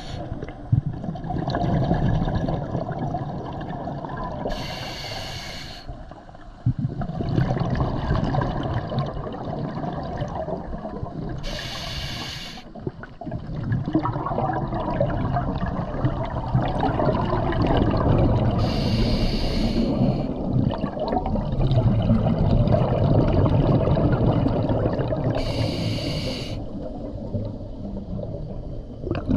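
Scuba diver breathing through a regulator underwater: four short hissing inhalations about seven seconds apart, each followed by a long, low rush of exhaled bubbles.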